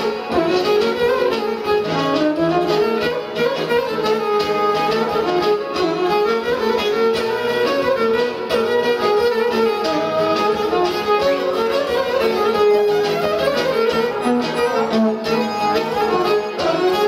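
Live Greek folk violin playing an ornamented, sliding dance melody over a steady rhythmic accompaniment from laouto and keyboards: a tsifteteli-ballos dance tune.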